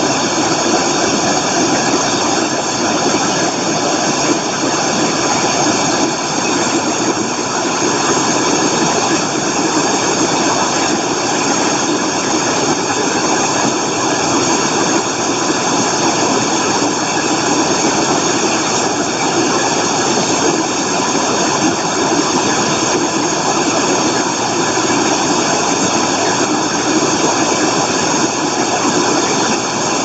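Large waterfall crashing over rock: a loud, steady rush of falling water that never changes.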